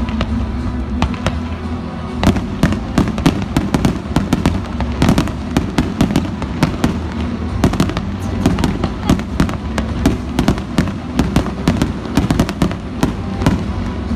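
Fireworks going off in a rapid crackling barrage from about two seconds in, many sharp reports a second, over steady background music.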